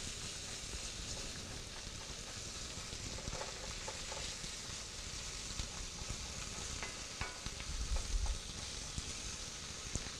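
Spinach, onions and garlic sizzling in oil in a cast-iron skillet while being stirred with a wooden spoon: a steady frying hiss with a few faint taps and scrapes of the spoon against the pan.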